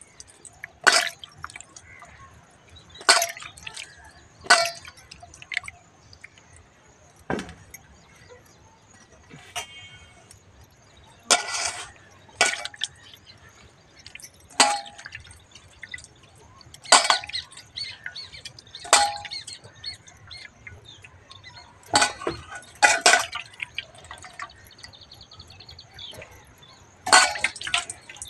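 Water splashing and dripping into a steel bowl as a wet snap melon is rubbed clean by hand, with the washer's bangles clinking. It comes as sharp splashes and clinks every one to three seconds.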